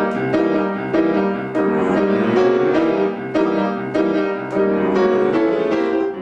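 Piano playing a classical passage of chords and notes, a new one struck about twice a second.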